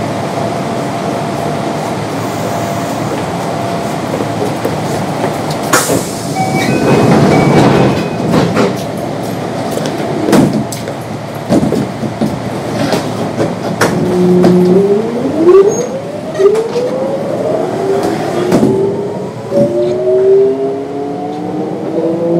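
Inside a Kintetsu 3200 series train with Mitsubishi GTO-VVVF traction control: steady equipment hum, then a burst of noise and clunks as the doors close. About halfway through the train pulls away, and the GTO-VVVF inverter whine climbs in pitch in a series of distinct steps as it accelerates.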